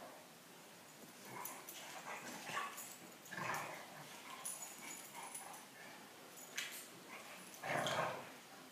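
Two bully-breed dogs play-fighting, making short, irregular bursts of vocal noise as they wrestle, the loudest burst near the end.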